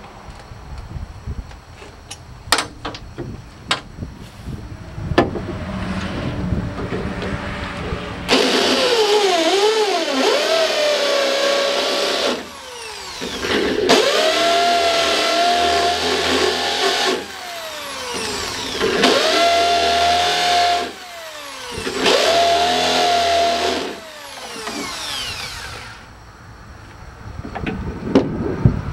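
Corded electric drill running in four bursts while drilling holes through the sheet metal of a 1953 Ford truck cab. Each burst spins up to a steady whine and winds down with a falling pitch when the trigger is let go. A few sharp clicks and knocks come before the first burst.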